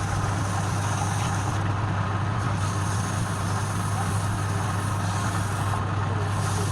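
Electric motor of a wood lathe running steadily, with a low, constant hum under an even whirring noise.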